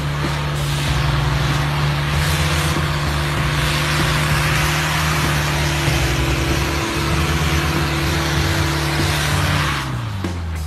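Mitsubishi L200 pickup engine held at steady high revs as its tyres spin and churn through deep snow, with a loud hiss of thrown snow. Near the end the revs fall and the hiss stops.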